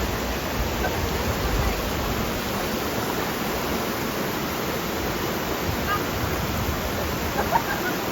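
Rushing water of a waterfall or mountain stream, a steady, even rush with no change in level.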